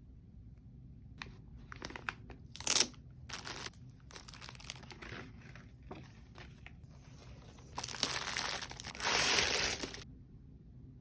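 Keyboard packaging being unwrapped by hand: scattered crinkling and rustling, with one sharp, loud crackle about three seconds in and a longer, denser stretch of rustling near the end.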